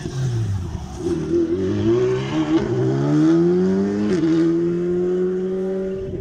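A rally car's engine on a stage. The revs fall as it comes off the throttle, then climb hard as it accelerates away, with a quick gear change about four seconds in. After that the engine holds a steady high pitch and slowly fades.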